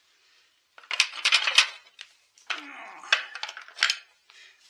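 Metal tools and small chainsaw parts clinking and clattering as they are handled and set down, in two bouts of rapid knocks about a second apart.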